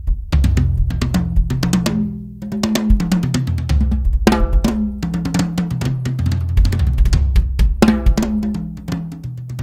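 Drum kit fitted with Remo Controlled Sound Clear heads, played in a groove with dense strikes, bass drum, snare and tom fills that step through the toms' pitches.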